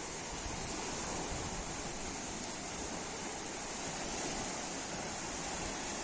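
Small waves washing steadily onto a shore, with wind.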